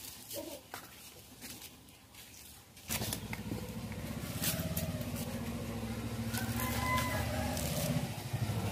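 Light clicks and scrapes of curved blades cutting and peeling bamboo shoots. About three seconds in, a steady engine drone starts suddenly and carries on, louder than the cutting.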